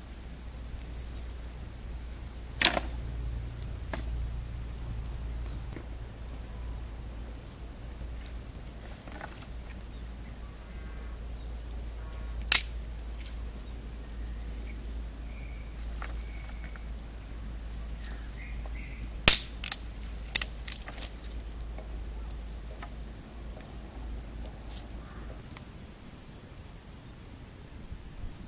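Firewood giving a handful of sharp, loud cracks, spread through, with fainter crackles between. A steady high insect buzz runs behind.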